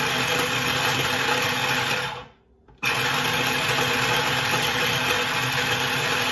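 Small electric mini food chopper whirring as its blade chops boiled gizzards fine. It stops about two seconds in, then starts again suddenly about half a second later.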